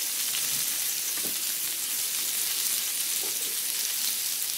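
Scallops and shrimp sizzling in butter on a hot ridged grill plate: a steady frying hiss.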